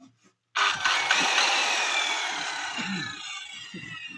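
RYU electric circular saw switched on with a sudden loud whir about half a second in; its whine then falls steadily in pitch and fades over the next three seconds.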